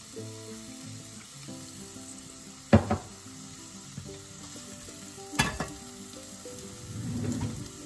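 Chopped onions sizzling steadily as they fry in oil in a nonstick frying pan, with two sharp knocks about three and five and a half seconds in.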